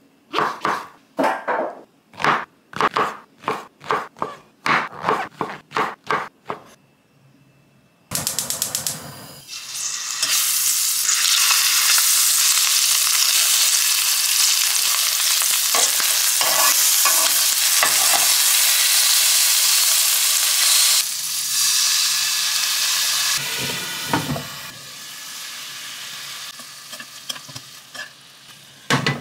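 Pieces of pollock roe sizzling in hot oil in a frying pan. The sizzle starts suddenly about eight seconds in, stays loud through the middle and dies down toward the end. Before it comes a run of about a dozen sharp knocks.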